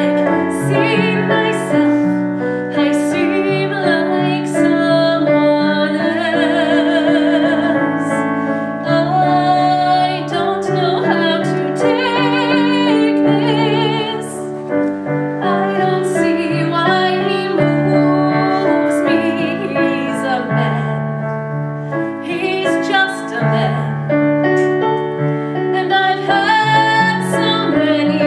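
A woman singing a solo song with vibrato, accompanied by piano.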